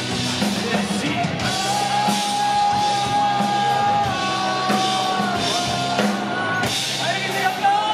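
Live rock band playing: electric guitar, bass guitar and drum kit, with a male singer holding long notes into a microphone, the pitch stepping down slightly partway through.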